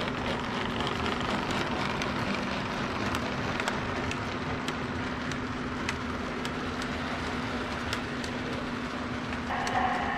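Lionel prewar Blue Comet toy train, pulled by a 226E electric locomotive, running by on tinplate T-rail track. It makes a steady rumble of wheels and motor under a constant hum, with sharp clicks about twice a second.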